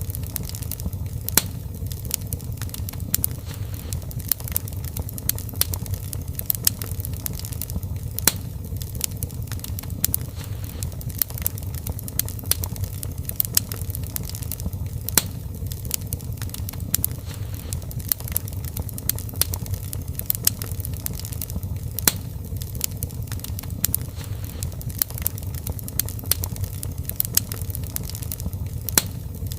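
Fireplace fire crackling: many sharp pops and snaps, several a second, over a steady low rumble of the flames.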